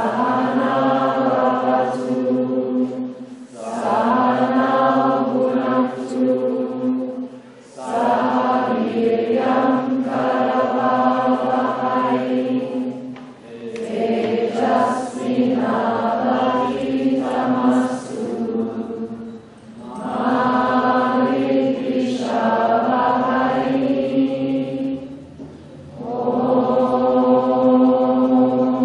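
Group of voices chanting in unison, mantra-style, at yoga chanting practice: long phrases held on a nearly steady pitch, with short breath pauses between them about every four to six seconds.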